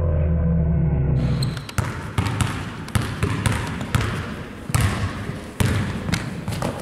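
A basketball being dribbled on a hardwood gym floor: a run of separate, sharp bounces at an uneven pace. Before them, a low rumble cuts off about a second in.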